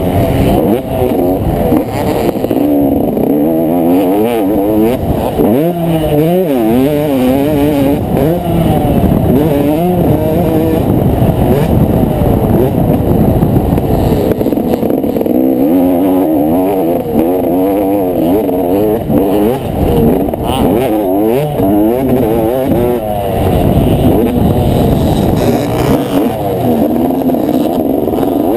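Yamaha motocross bike's engine revving hard, its pitch climbing and dropping again and again as the rider accelerates, shifts and backs off around the track, heard close on the bike with low wind rumble.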